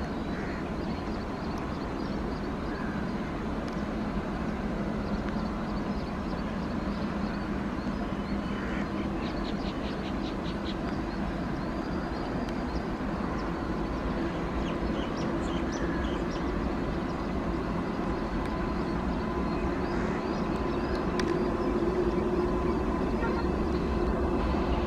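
WAP-7 electric locomotive hauling a passenger train, approaching slowly with a steady rumble and hum that grows louder as it nears.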